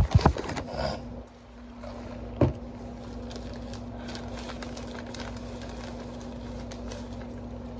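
A few loud knocks and thumps in the first second and another about two and a half seconds in, then faint crinkling of plastic bags being handled, over a steady low hum.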